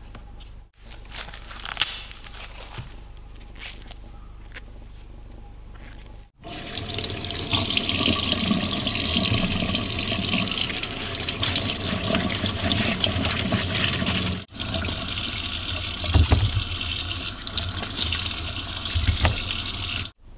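Kitchen tap running hard into a sink, the water splashing as fresh corn cobs are rinsed under the stream, with a brief break about 14 seconds in. Before it, for the first six seconds, there is quieter rustling and tearing of corn husk and silk being pulled off by hand.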